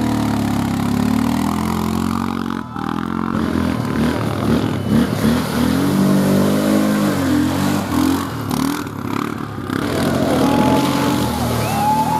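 Quad bike (ATV) engine revving hard and easing off again and again as it churns through deep mud, its pitch rising and falling.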